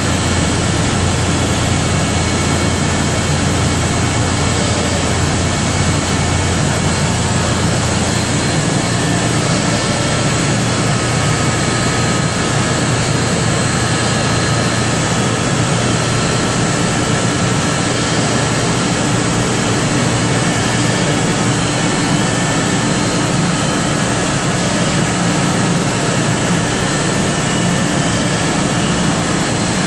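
Steady, loud running noise of an industrial biomass hot-water boiler plant's machinery, a broad rushing sound with a few faint steady hum tones. A low hum eases off about nine seconds in.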